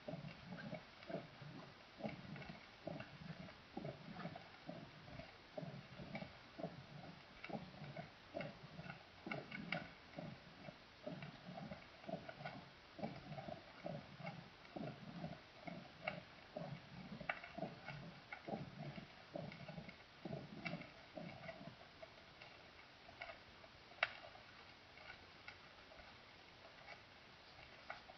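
Recorded heart sounds as heard through a stethoscope: a regular run of low thuds, the heartbeat, fading out about three-quarters of the way through. Faint ticking runs underneath, with one sharp click near the end.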